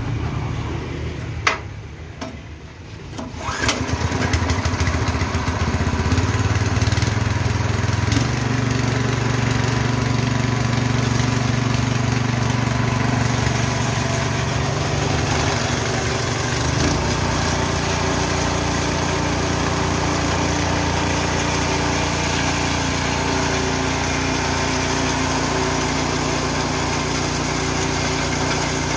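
Engine-driven Richi KD 350 rice and corn mill starting up about three seconds in, then running steadily, its engine note shifting twice along the way.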